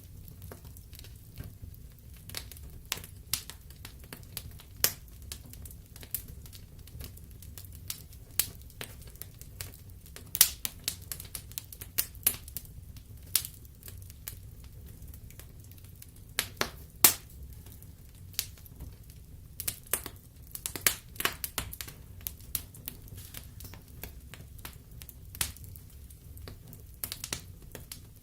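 Wood fire in a fireplace crackling, with irregular pops and some sharper snaps from the burning logs over a low steady rumble of the flames.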